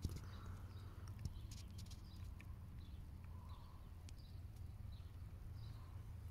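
Faint outdoor ambience: a steady low hum with small, high chirps every half second or so, likely distant birds, and a few light clicks, the loudest right at the start and another about a second later.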